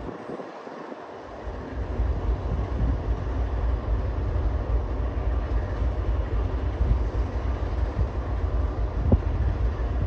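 Diesel freight locomotive engines running with a deep, pulsing low rumble that rises sharply in loudness about a second and a half in and then holds steady.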